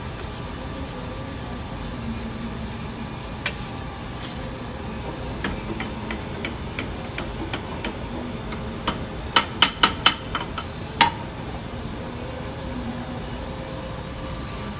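Small hammer tapping on metal parts. Scattered light ticks and clinks build to a quick run of about five sharper metallic strikes a little past the middle, over a steady low hum.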